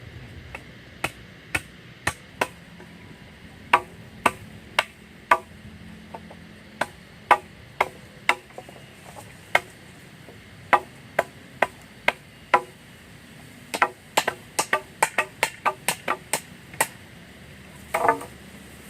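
Wood being chopped with a blade: a long series of sharp single strokes at an uneven pace, quickening into a rapid run of blows near the end.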